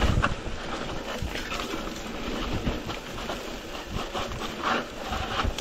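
Mountain bike rolling over a rough dirt and grass trail: a steady rush of tyre and trail noise with frequent small clicks and knocks as the bike rattles over the bumps.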